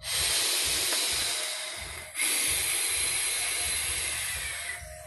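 Air hissing through a Hive RTA rebuildable tank atomizer as a long, hard drag is taken on it. The hiss runs about two seconds, breaks off briefly, then comes back for nearly three seconds and fades.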